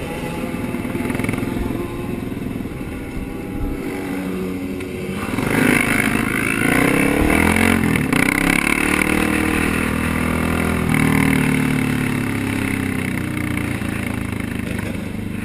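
A pack of sport motorcycles running together. Several engines swell and rev about five seconds in, with overlapping rising and falling pitches, then ease back to a steady run.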